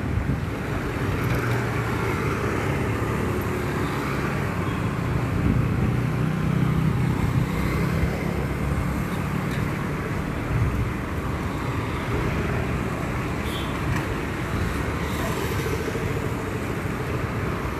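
Road traffic noise: vehicle engines running with a steady low rumble that swells a little louder around the middle.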